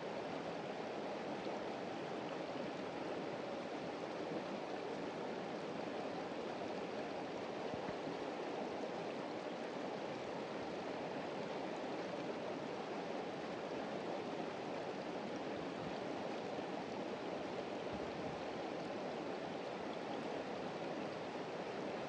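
Shallow mountain stream rushing over rocks: a steady, even rush of water.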